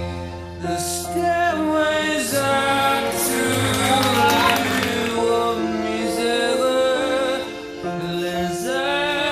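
Music with a singing voice over it, playing without a break as the accompaniment to a silent stage act.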